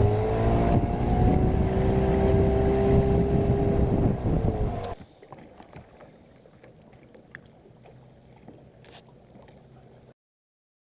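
Boat outboard motor running under way, its pitch rising slightly as it speeds up, with wind on the microphone. About five seconds in it cuts off abruptly to a faint background with a few light ticks.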